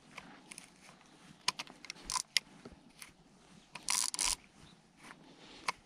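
Spinning reel being handled after a cast: scattered small mechanical clicks, and a half-second burst of reel winding about four seconds in.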